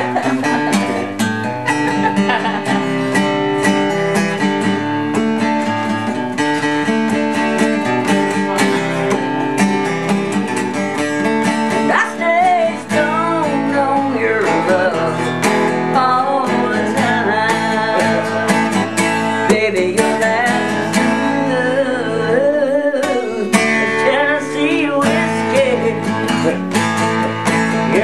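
Steel-string acoustic guitar strummed in a steady run of chords, with a woman's singing voice coming in about halfway through.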